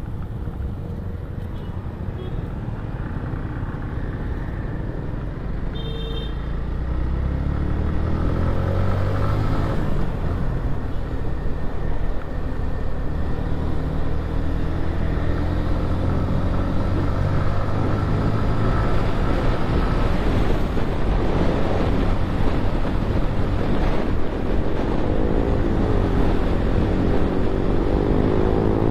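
A motorcycle engine and wind noise heard from the moving bike. The engine pitch rises through the gears as the bike speeds up from about eight seconds in. A short high beep sounds about six seconds in.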